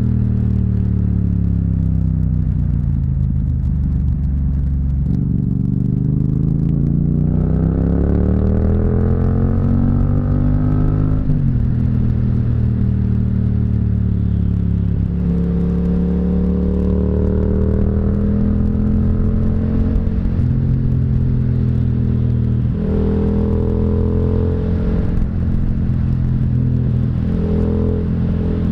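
Yamaha MT-07's parallel-twin engine and exhaust under way on the road. The revs fall over the first few seconds, then climb steadily and drop sharply about eleven seconds in, as at a gear change, and run at a steadier pitch through the rest with a few more quick changes in revs.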